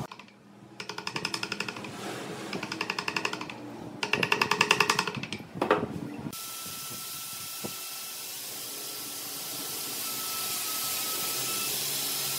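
A chisel driven into wood in three quick bursts of rapid, even strokes, about ten a second, the last the loudest, then a single knock. After that a steady hiss takes over.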